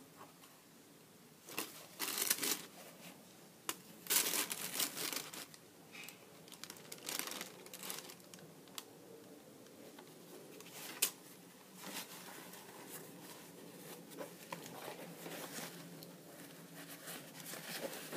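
Tissue paper crinkling and a canvas sneaker rustling as they are handled, in irregular bursts, loudest about two seconds in and again around four to five seconds in. There is a single sharp click about eleven seconds in.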